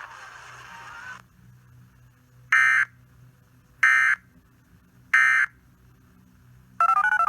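Emergency Alert System end-of-message code: three short, identical bursts of screechy digital data tones, about a second and a half apart, marking the end of the warning broadcast. A brief tone blip follows near the end.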